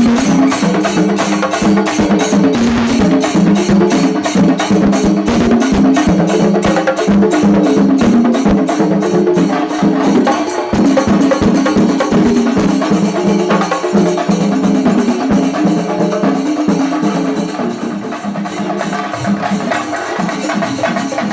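Music with fast, dense percussion strokes under a stepping melody, played loud and without a break.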